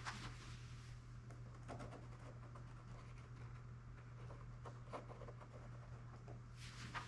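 Faint handling sounds: small taps and scratchy rubbing while wood glue is worked into a foam-wing repair, over a steady low hum. The loudest clicks come just after the start and near the end.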